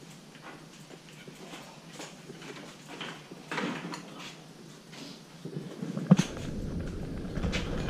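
Scattered clicks and knocks of bicycles being wheeled and handled in a garage, with a sharp knock about six seconds in followed by a steady low rumbling noise.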